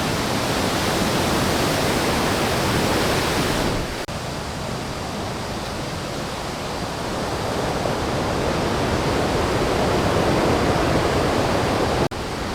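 Murchison Falls, the River Nile forced through a narrow rock gorge, roaring as a loud, steady rush of falling water. About four seconds in the sound breaks off for an instant and comes back duller, and there is another brief break near the end.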